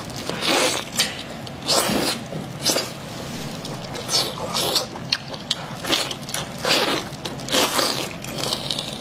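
Close-miked wet eating of a saucy piece of sheep tripe: a dozen or so sharp slurps and smacks at irregular intervals, over chewing.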